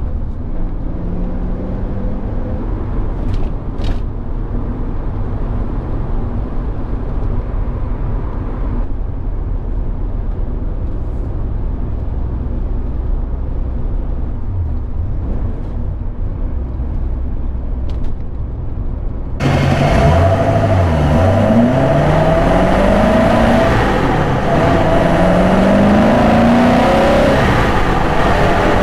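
Porsche 928 S's V8 engine and road noise heard from inside the cabin while driving. About two-thirds through, the sound becomes suddenly louder and brighter, and the engine pitch rises several times as the car pulls through the gears.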